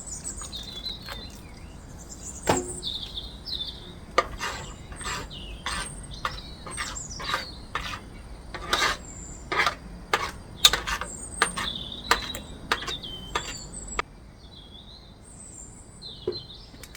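A spoon knocking and scraping against a saucepan while stirring a thickening cornflour paste, with sharp irregular clicks about once or twice a second that stop about 14 seconds in. Birds chirp throughout.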